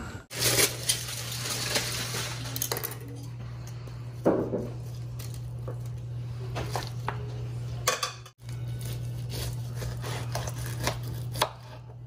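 Metal tongs and a knife clinking and scraping against a plate and a plastic cutting board while a rack of smoked pork ribs is moved and sliced, in scattered clicks over a steady low hum.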